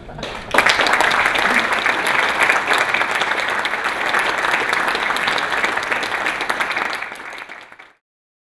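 Audience applauding, a dense patter of many hands clapping that starts about half a second in and fades out near the end.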